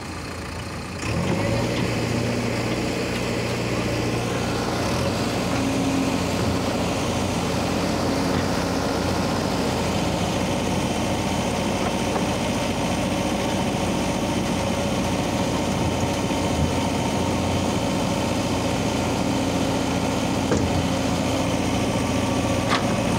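JCB 3DX backhoe loader's diesel engine running close by, getting louder about a second in and then holding a steady pitch.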